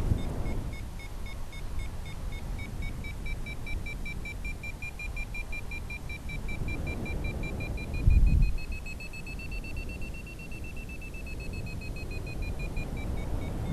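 Paragliding variometer beeping rapidly, signalling a strong climb of about 4 m/s. The beeps rise in pitch about 8 s in and ease back down before stopping near the end. Under them is a low wind rumble on the microphone, with a louder gust about 8 s in.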